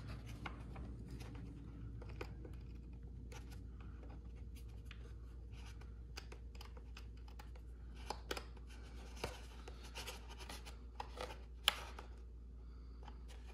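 Faint scratching and small scattered clicks of a hex (Allen) key working a set screw on the nose-gear collar inside a foam model jet's fuselage, with hands rubbing on the foam. One sharper click comes near the end, over a low steady hum.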